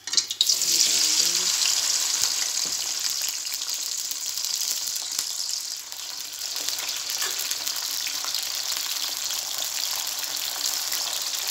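Cut okra sizzling in hot oil in a karahi as it is tipped in, loudest just after it hits the oil, then settling into a steady frying sizzle.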